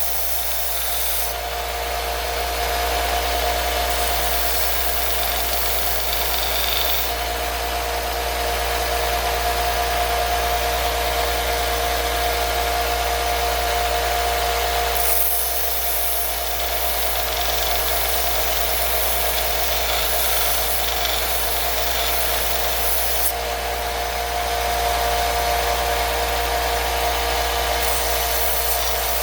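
Belt sander running with a workpiece held against the moving belt, a steady motor hum under a sanding rasp that grows and fades several times as the pressure changes.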